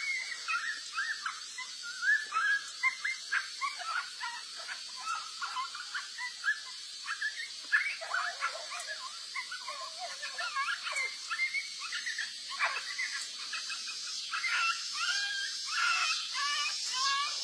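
Dogs yelping and squealing: short high-pitched cries, one after another without a break, over a steady high hiss.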